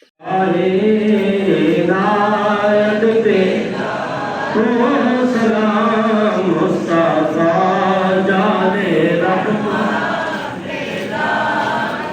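A man's voice chanting a melodic religious recitation in long phrases, with held notes around a steady pitch.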